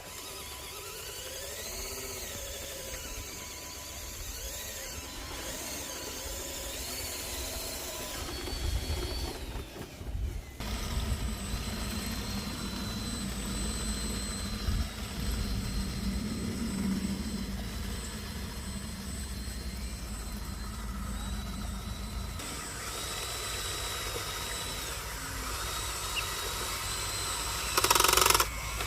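Radio-controlled construction trucks working: small motors whine, rising and falling in pitch. From about ten seconds in a steady, low engine-like sound runs with a thin high whine over it. Near the end comes a short, loud hiss.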